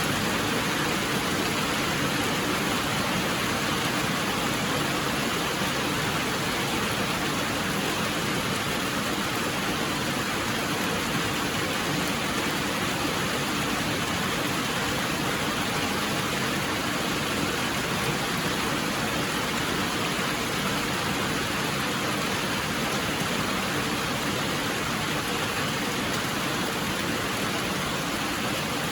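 Steady, continuous rain: an even hiss without a break.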